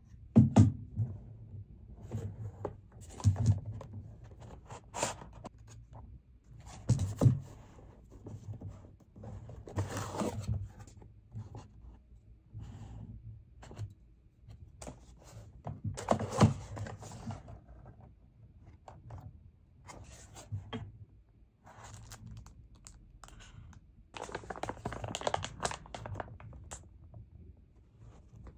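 PC parts being unboxed by hand on a wooden desk: cardboard boxes and packaging scraping and rustling, with thunks as items are set down, in an irregular string of separate handling noises.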